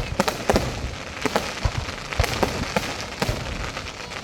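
Fireworks going off: a rapid, irregular run of sharp bangs and pops, several a second, over continuous crackling.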